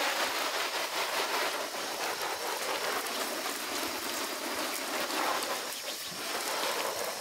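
Garden hose spray nozzle spraying a jet of water onto a waterproof fishing suit, a steady hiss of water rinsing the suit down.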